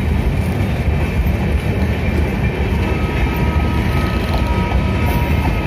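Passenger train of LHB coaches rolling past close alongside the platform: a loud, steady rumble of wheels on the rails. A faint thin whine joins in about three seconds in.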